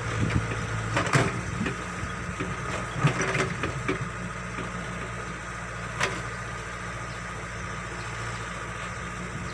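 Backhoe excavator's diesel engine running steadily, with a few sharp knocks about one, three and six seconds in.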